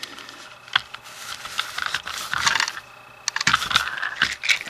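Light clicks, taps and rustling of plastic Trackmaster toy train pieces being handled, with one sharper click about three-quarters of a second in.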